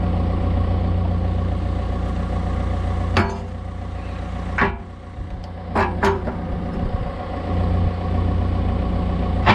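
Deere 110 excavator's diesel engine running, with a handful of short, sharp clicks and knocks about three to six seconds in.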